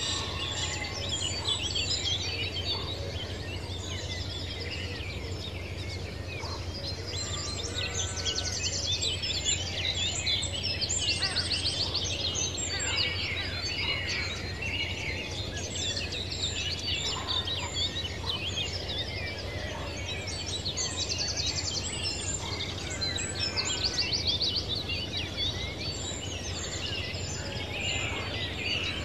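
Countryside ambience: many birds chirping and trilling at once, dense and continuous, over a steady low rumble.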